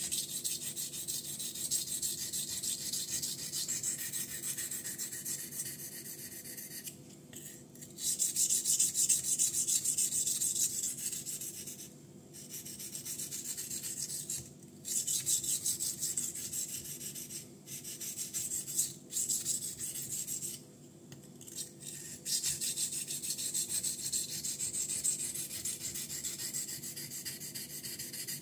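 440C steel blade of a Ganzo Firebird F759M folding knife being rubbed back and forth on a wet Binsui 1000-grit Japanese natural whetstone. It makes a continuous gritty scraping hiss, broken by short pauses every few seconds.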